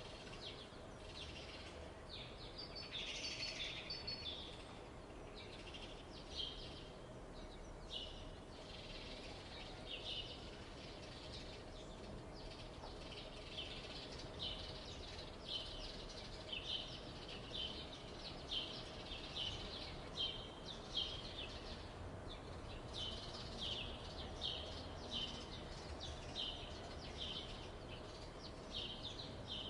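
Morning birds chirping: short, high chirps repeating about once or twice a second, with a denser flurry of calls about three seconds in. A faint steady hum runs beneath.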